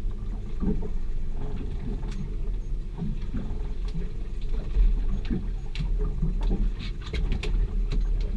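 Steady low rumble of a boat on open water, with scattered light knocks and clicks.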